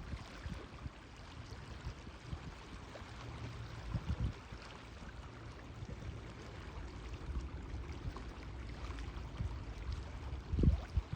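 Sea water lapping and sloshing, with wind buffeting the microphone in low rumbling gusts, the strongest about four seconds in and near the end.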